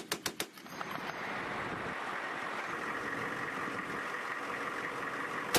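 A Humvee-mounted 7.62 mm M240B machine gun fires the tail of a burst, about four rapid shots. Then comes a steady rushing noise for several seconds. Another burst starts right at the end.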